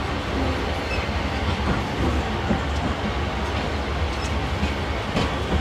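Long freight train of hopper wagons rolling past: a steady low rumble of wheels on rail with scattered clicks and knocks as the wheels cross the rail joints.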